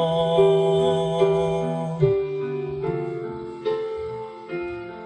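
Slow instrumental music: sustained chords struck about once a second and left ringing, as in a song's intro before the vocals.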